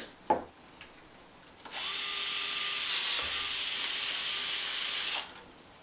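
DeWalt 8-volt cordless gyroscopic screwdriver with a drill bit, drilling out the hinge-pin hole in a plastic RC suspension arm so a threaded hinge pin can pass through. It runs at a steady speed for about three and a half seconds, starting near two seconds in and stopping shortly before the end, with a light click before it starts.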